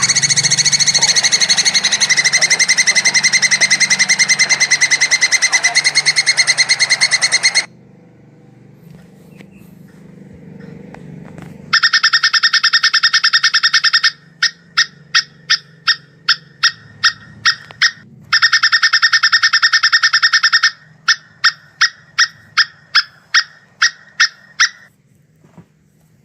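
Plantain squirrel (tupai kelapa) calling, the call offered as its mating call. A long, very rapid chattering trill is followed after a pause by more rapid trills, each breaking into a run of separate sharp chips at about two to three a second.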